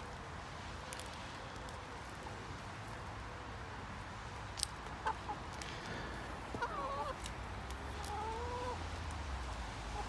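Domestic hens making soft, contented clucking calls while feeding. There are a few short calls that bend in pitch in the second half, with a few sharp ticks among them.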